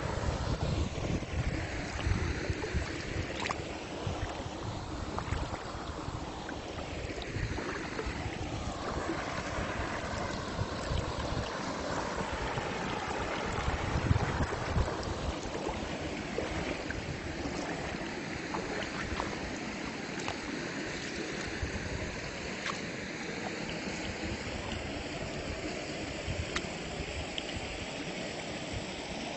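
Steady rushing of a flowing river, with a gusty low rumble of wind buffeting the microphone.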